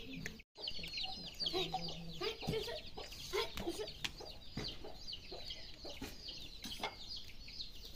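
Chickens clucking amid a steady stream of short, high chirps; the sound drops out for a moment about half a second in.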